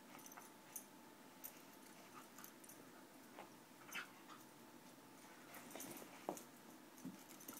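Faint scuffling and soft clicks of two puppies play-wrestling on carpet, with a sharper knock about six seconds in.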